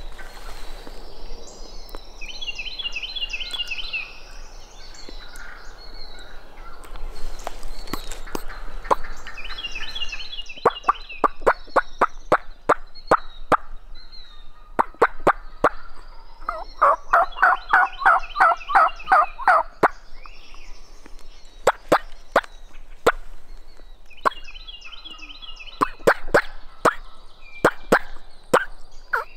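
Wild turkey gobbling repeatedly, four or five rapid rattling gobbles, the loudest and deepest about halfway through. Sharp clicks come between the gobbles.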